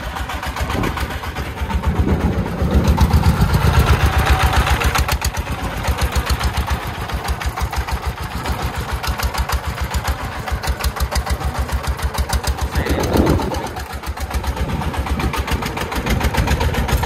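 A công nông three-wheeled truck's single-cylinder diesel engine chugging in a rapid, even beat as the loaded truck drives over rough ground. It works louder and deeper about two to five seconds in, then settles back.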